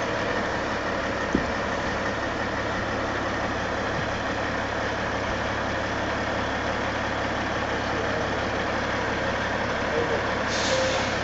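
Semi truck's diesel engine idling steadily at a standstill, with one sharp knock about a second and a half in.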